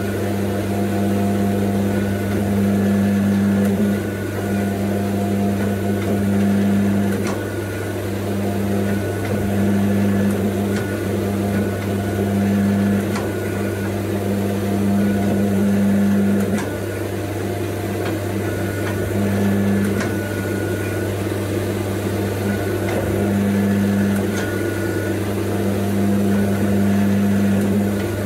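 Coal Iron Works 12-ton hydraulic forging press: its pump motor runs with a steady hum while the ram presses a hot 35 mm square steel bar between flat dies. A deeper note in the hum cuts in and out every second or two as the ram works, with a few faint clicks.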